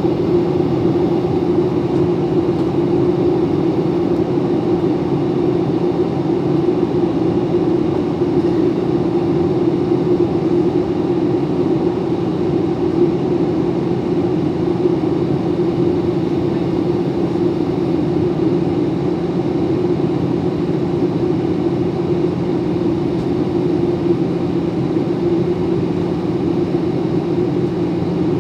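Steady cabin noise of a Boeing 737 in flight, heard from inside the cabin: an even engine drone and rushing airflow that hold unchanged throughout.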